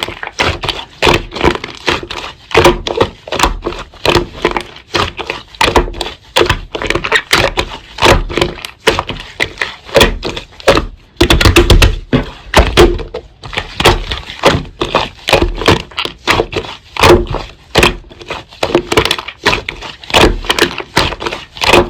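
Slime being squeezed, pressed and poked by hand, giving an irregular run of sharp pops and crackles several times a second, with a denser flurry about halfway through.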